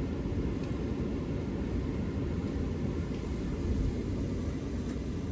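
Wind blowing across the microphone: a steady low noise with no distinct events.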